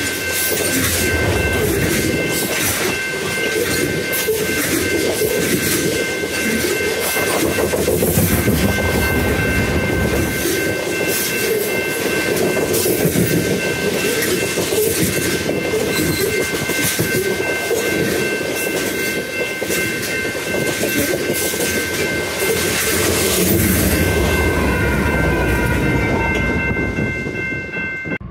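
Freight train of tank cars rolling past close by: steady rumble and rapid clatter of steel wheels over the rail joints, with a steady high-pitched ringing tone over it. The sound eases near the end as the last car goes by.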